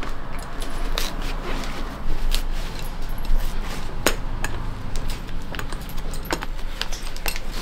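Lasting pincers tapping and clicking at irregular intervals as a leather hiking-boot upper is pulled over the last and tacked around the toe. A low steady hum runs underneath.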